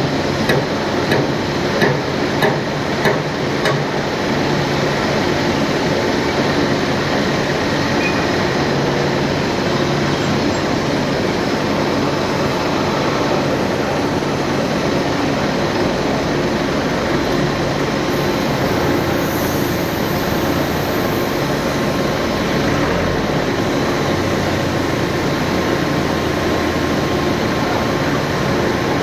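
Industrial machinery running with a steady, dense clattering noise. A few sharp knocks come in the first four seconds.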